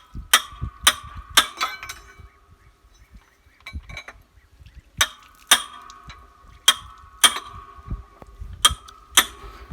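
Sharp metal-on-metal strikes, each leaving a short ringing note: a tool hitting steel engine parts, about ten blows, mostly in pairs half a second apart, with a pause of a few seconds in the middle.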